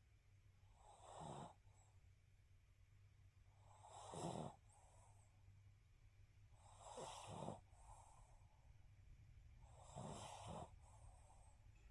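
Faint snoring: four snores about three seconds apart, each followed by a softer, shorter breath sound.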